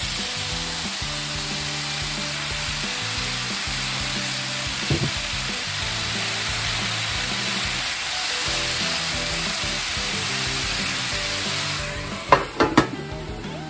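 Sliced pork and vegetables sizzling steadily on an electric hot plate, stirred with chopsticks. About twelve seconds in the hot plate's metal lid goes on with two sharp knocks, and the sizzle is muffled.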